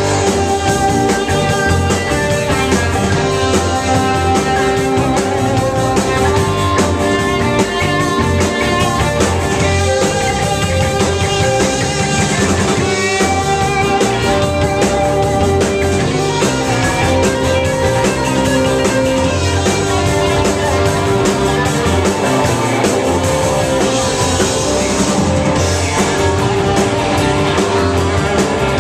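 Live rock band playing with guitar over a drum kit, steady and loud throughout.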